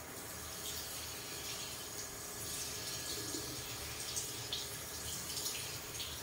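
Water running from a handheld sprayer at a salon shampoo basin: a steady hiss of spray with a few sharper splashes and drips into the basin.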